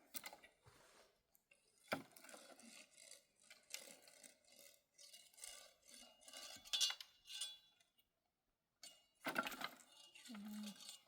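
Irregular light clinks, taps and knocks of small objects being handled, with a moment of complete silence about eight seconds in.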